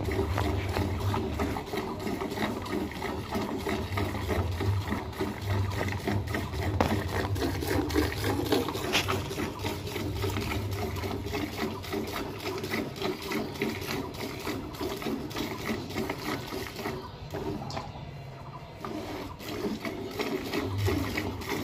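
Cow being milked by hand: milk squirting from the teats in quick, rhythmic jets into the vessel below.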